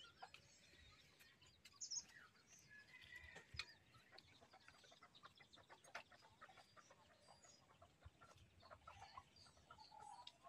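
Near silence, with faint bird calls and clucking-like calls scattered through, and a few soft ticks.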